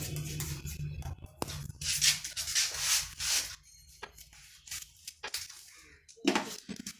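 Straight razor scraping over lathered facial skin and fine hair in short raspy strokes on a second shaving pass, loudest between about two and three and a half seconds in, followed by a few light clicks and a short scrape near the end.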